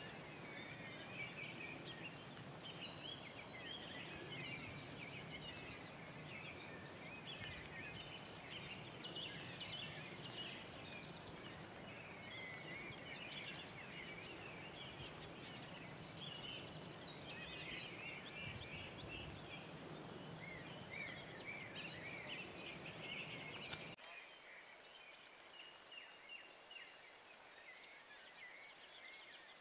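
Birds chirping and calling in a busy outdoor chorus over a low steady rush; about three-quarters of the way through the rush drops away, leaving fainter chirps.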